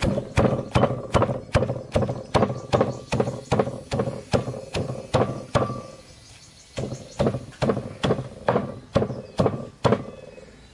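Pestle pounding chilli and spices in a mortar for chẩm chéo dipping sauce: steady strikes about two and a half a second, each with a short ring, with a brief break around six seconds in.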